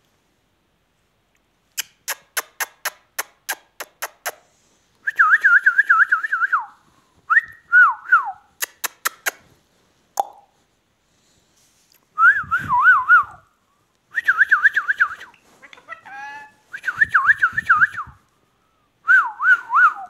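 Indian ringneck parakeet whistling: a run of about ten sharp clicks, then repeated phrases of a fast, wavering whistle trill with short pauses between them.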